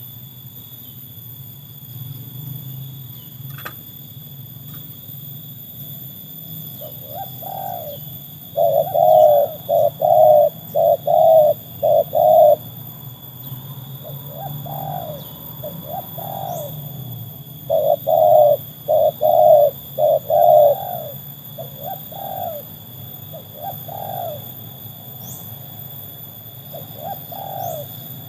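Spotted doves cooing: two loud runs of repeated rolling coo phrases, one about eight seconds in and one around eighteen seconds, with fainter coos between and after.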